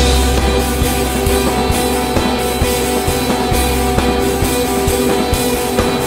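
Post-rock band music with guitars and drums.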